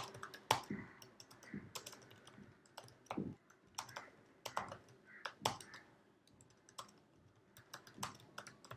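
Faint typing on a computer keyboard: irregular keystroke clicks as a sentence is typed, thinning out briefly about two-thirds of the way through.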